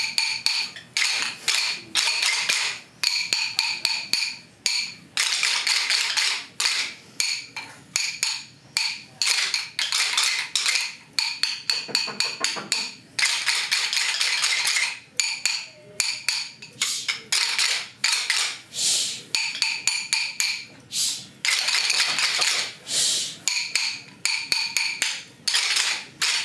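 Rhythm sticks tapped together in short, crisp rhythm patterns, with brief pauses between the groups of taps, as teacher and class echo rhythms in turn.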